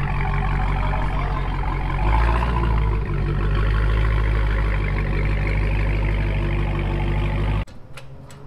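Supercharged 6.2-litre Hemi V8 of a 2016 Dodge Challenger Hellcat idling with a steady low rumble, swelling slightly about two seconds in as the car creeps into the service bay. It cuts off abruptly shortly before the end.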